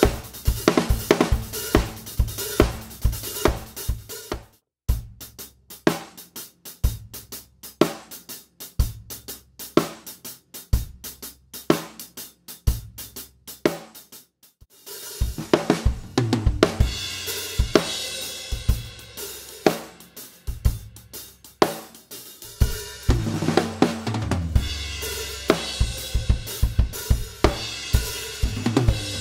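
Acoustic drum kit playing a hi-hat groove with snare backbeats and bass drum, with loud accented and soft hi-hat strokes. The playing stops briefly about five seconds in and again about fifteen seconds in, then starts again; the last part is the fullest.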